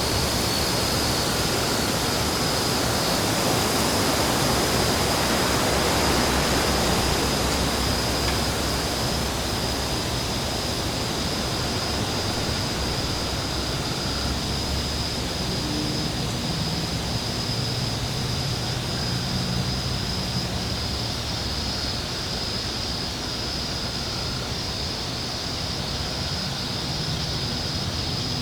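Steady rushing wind with a low rumble underneath, swelling slightly a few seconds in and then easing.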